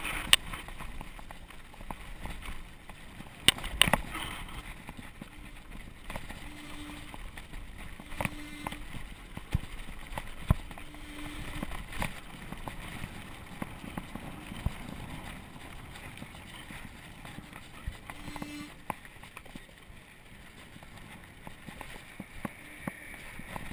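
Mountain bike rolling down a loose gravel and dirt trail, heard from a handlebar-mounted action camera: steady tyre and wind noise on the microphone, with sharp knocks and rattles each time the bike hits a bump.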